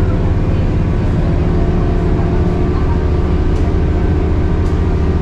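Scania K230UB city bus's 9.3-litre DC9 diesel engine and ZF Ecomat automatic gearbox running steadily under way, heard inside the passenger cabin as a deep drone with steady tones above it. Two faint ticks in the second half.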